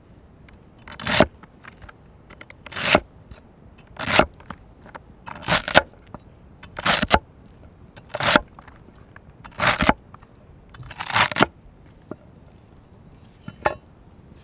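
Large cleaver-like knife cutting through celery stalks on a wooden cutting board: a series of crunchy cuts, about one every one and a half seconds, with a lighter cut near the end.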